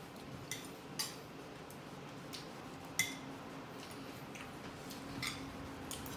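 Occasional light clinks and taps of cutlery against plates during a meal, a handful of separate strokes, the sharpest about one and three seconds in.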